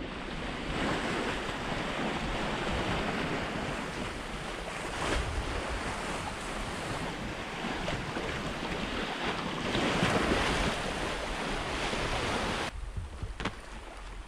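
Sea rushing along the hull of a Hallberg-Rassy 54 sailing yacht under way, with waves and wind buffeting the microphone. The wash swells louder twice, then drops to a quieter rush with a few small knocks near the end.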